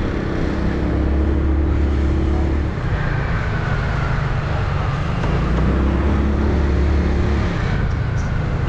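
Yamaha R6 sport motorcycle's inline-four engine running at a steady speed under way, over wind and road noise. It eases off about three seconds in and pulls steadily again about three seconds later.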